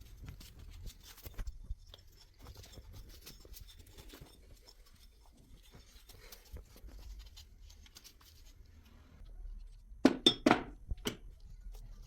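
Faint handling and rustling noises, then a few sharp knocks in quick succession about ten seconds in.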